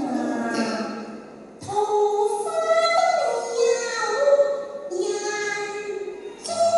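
A man and a woman singing a Cantonese opera duet through microphones. The woman's voice carries most of it in long, wavering held notes, with a short pause about a second and a half in.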